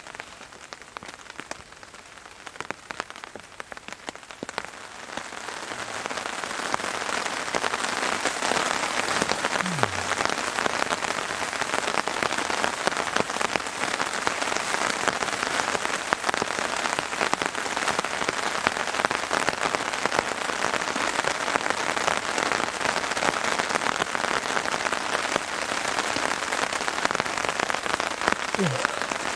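Rain falling on a tarp shelter, a dense stream of small drop hits. It is lighter at first, grows heavier about six seconds in, then holds steady.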